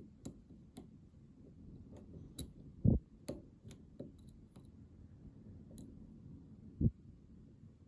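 Lock pick working the pins of a Best SFIC lock core: a dozen or so small, irregular metallic clicks and ticks, with two dull thumps at about 3 and 7 seconds in.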